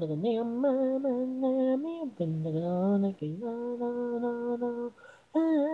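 A solo female singing voice with no accompaniment, from an isolated vocal track. She sings a phrase of shifting notes that ends on a long, steady held note, then takes a short breath and starts the next phrase near the end.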